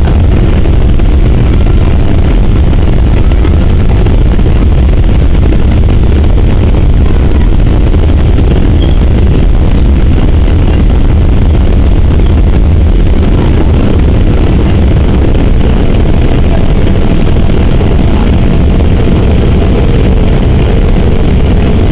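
Boeing 787-8 Dreamliner's Rolls-Royce Trent 1000 turbofan engines at takeoff thrust, heard from inside the cabin during the takeoff roll: a loud, steady rumble, heaviest in the bass.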